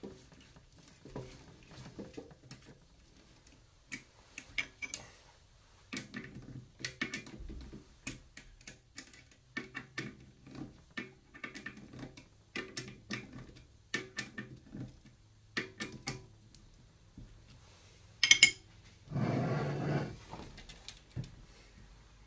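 Small metallic clicks and clinks of a drill bit being fitted into a pillar drill's chuck and the chuck being tightened by hand, coming in irregular runs. Near the end there is a sharp click, the loudest sound, then a louder noise lasting about a second.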